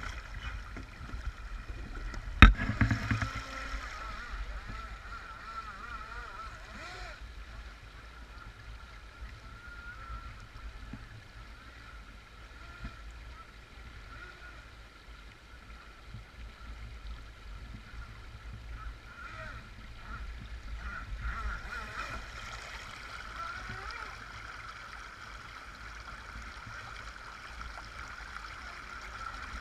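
Radio-controlled jet boat's motor giving a steady, slightly wavering whine over the rush of a shallow stream, louder at the start and again as the boat draws near in the last part. There is a single sharp knock about two and a half seconds in.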